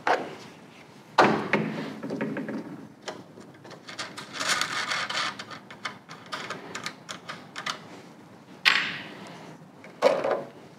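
Handling noises from taking the air cleaner off a Honda GX160 small engine: the black plastic air-filter cover and the foam-wrapped filter element being unscrewed, pulled off and set down. It comes as a few sharp knocks, near the start, about a second in and twice near the end, with a stretch of rubbing and scraping in the middle.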